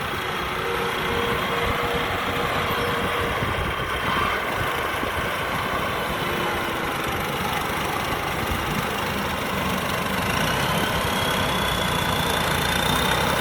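Combine harvester's Hino J08C diesel engine running steadily under load, with a thin high whine that rises slightly about ten seconds in.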